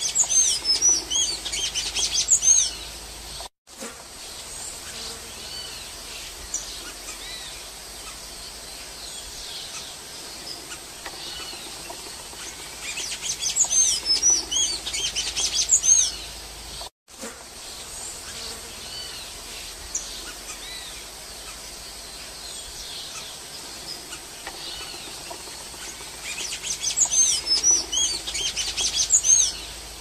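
Golden-chevroned tanager singing: three bursts of rapid high-pitched notes, each two to four seconds long, about thirteen seconds apart, with faint scattered bird chirps between them.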